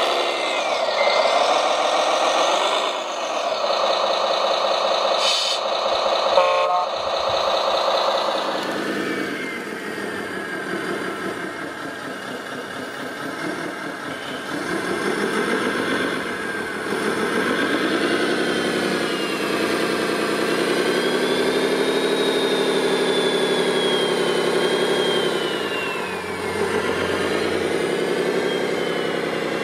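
Radio-controlled model trucks and construction machines working: engine sound rising and falling in pitch, with a short run of reversing beeps about six seconds in and a thin high whine rising and falling in the second half.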